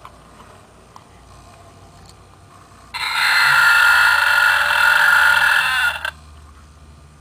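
Burping novelty keychain playing a recorded burp through its tiny speaker: one long, tinny belch of about three seconds, starting about three seconds in.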